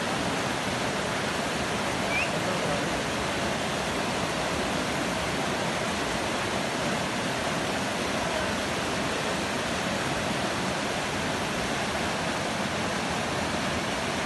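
Fast mountain river rushing over rocks in rapids: a steady, unbroken rush of white water.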